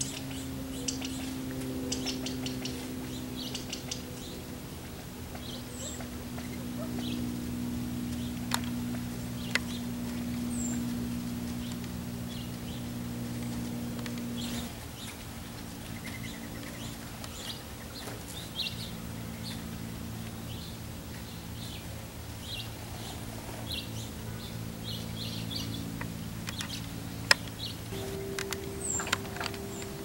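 California quail giving short chirping call notes, scattered and irregular, with a few sharp clicks among them. Underneath runs a steady low hum of several held tones that changes pitch about halfway through and again near the end.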